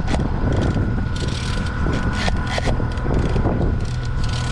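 Fishing reel clicking and ratcheting while a hooked Chinook salmon is played, over the steady hum of the boat's motor.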